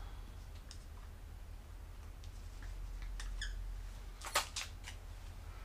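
Dry-erase marker squeaking on a whiteboard as a word is written: a few short, faint, high squeaks, then a louder cluster of quick squeaks about four seconds in. A steady low electrical hum runs underneath.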